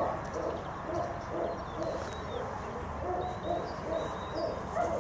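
Dogs barking in a steady run of short, muffled barks, two or three a second, with a few faint bird chirps above.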